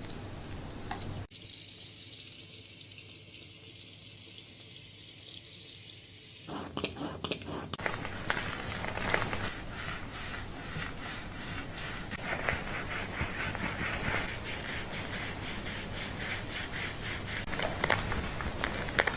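Water running from a salon wash-basin shower head onto hair. It is a steady hiss at first, then from about six seconds in it is mixed with quick, wet rubbing and crackling as hands scrub the hair and scalp.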